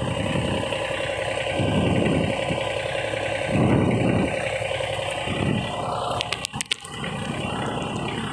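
John Deere 3235 reel mower's engine running steadily at idle, with a quick cluster of sharp metal clicks a little past halfway from a spanner working the reel's adjusting bolt.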